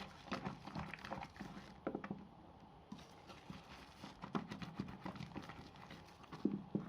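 Soap being lathered by hand, making irregular short wet clicks and smacks.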